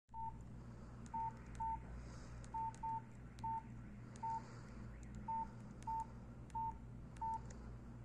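Nokia C2-01 keypad tones: eleven short, identical beeps at one pitch, coming at irregular intervals as the navigation key is pressed, with faint key clicks.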